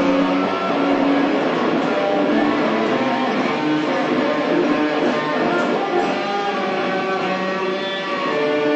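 Improvised music for guitar and live electronics: a dense, noisy wash with held tones that shift in pitch.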